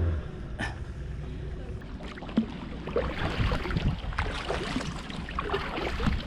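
Kayak paddles dipping and splashing in calm water in irregular strokes, with wind buffeting the microphone around the start.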